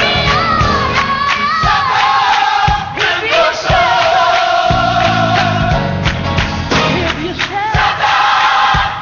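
Gospel music: a choir and lead voice singing held, gliding notes over drums and bass.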